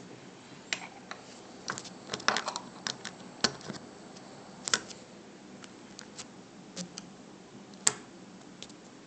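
Scattered light plastic clicks and taps of USB plugs and cable being handled while a mouse is connected to a phone's OTG cable, at irregular intervals, with a cluster about two seconds in and the sharpest click near the end.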